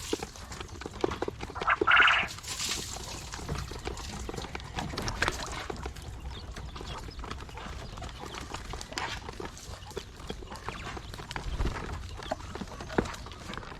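Quail on a small farm: frequent small clicks and scuffling, with scattered short calls, the loudest one about two seconds in.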